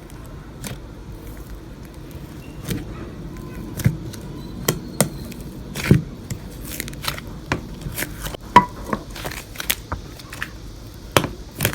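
Hands squeezing and pressing slime, making irregular sharp clicks and pops, one or two a second, over a low steady background hum.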